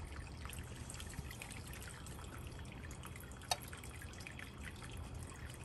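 Pumpkin sewai (vermicelli pudding) simmering in a square skillet: faint bubbling with many small pops, and one sharper click about three and a half seconds in.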